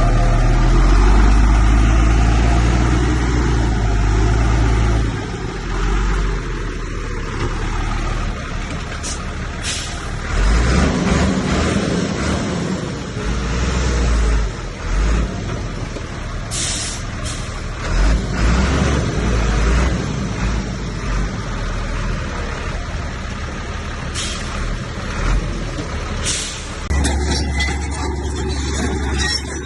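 Diesel engines of heavy earthmoving machinery (bulldozer and dump trucks) running and labouring, the low rumble swelling and easing. Several short sharp sounds cut in over it, about a third of the way in, twice a little past halfway, and near the end.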